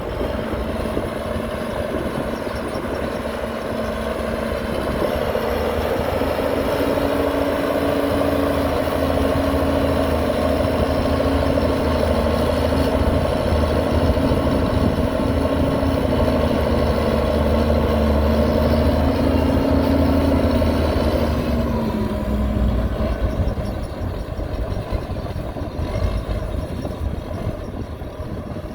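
Heavy diesel engine of a construction machine running, its pitch wavering up and down, growing louder through the middle and dropping back near the end.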